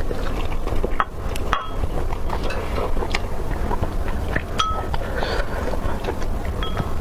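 Light clicks and clinks of tableware during eating, with two short ringing clinks, over a steady low rumble.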